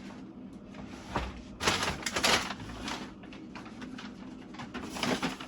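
Groceries being handled and put away: bursts of bag rustling and the clatter of packages being set down, the busiest stretch about two seconds in and another near the end.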